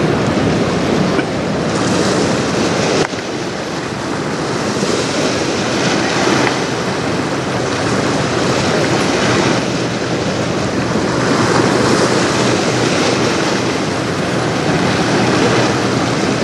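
Strong wind buffeting the microphone over choppy river water washing and splashing, a loud, steady rush that surges and eases, with a brief dip about three seconds in.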